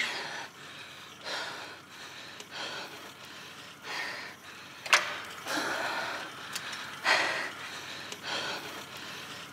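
A woman breathing hard during a cardio workout: short, forceful exhalations, roughly one a second, with a sharp click about five seconds in.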